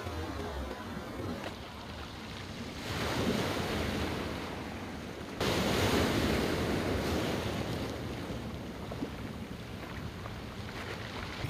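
Ocean surf washing and breaking against a rocky shore, with wind buffeting the microphone. The surf swells about three seconds in, grows suddenly louder about five seconds in, then slowly eases.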